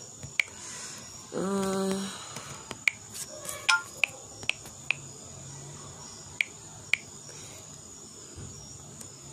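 About a dozen short, sharp clicks at irregular intervals, and a woman's brief hummed 'mm' about a second and a half in, over a faint, steady high-pitched whine.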